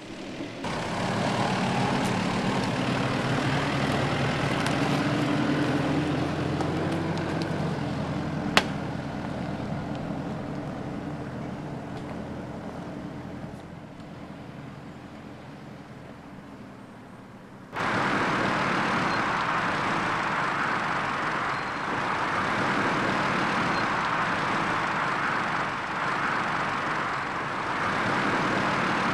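Mitsubishi Pajero 4x4 driving off-road, its engine running with a steady note that rises a little and then fades as it moves away, with a sharp click about eight seconds in. About two-thirds of the way through the sound changes abruptly to a louder, rougher engine and tyre noise as the vehicle crawls over rough ground.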